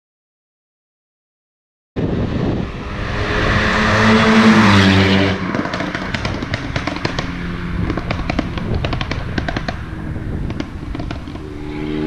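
After about two seconds of silence, a Renault Mégane 225's turbocharged four-cylinder, with a full aftermarket exhaust and decat, accelerates hard with rising revs. It then pops and crackles repeatedly on the overrun, and pulls hard again near the end.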